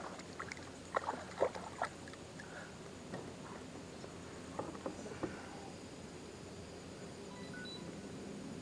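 Light knocks and clicks of gear being handled on a plastic sit-on-top kayak, in two short clusters about a second in and about five seconds in, over a faint steady hiss.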